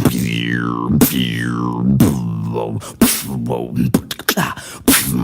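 Beatboxing: a mouth-made didgeridoo drone held under sharp kick and snare beats about once a second, with two falling whistle-like vocal swoops in the first two seconds. About three seconds in the drone breaks off into a run of quick clicks and short beats.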